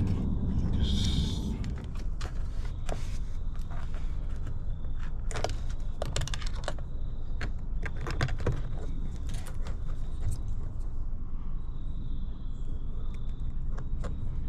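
Scattered light clicks and rattles, a few at a time, of hand tools and small parts being handled during wiring work on an ATV, over a steady low background rumble.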